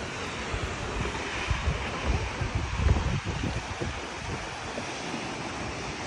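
Wind buffeting the phone microphone in gusts, strongest about three seconds in, over a steady rush of falling water and surf from a waterfall that drops toward the sea.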